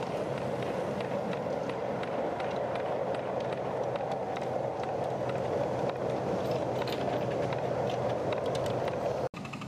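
Miniature railway train running along the track: a steady noise of wheels on rails with faint clicks. It cuts off abruptly near the end.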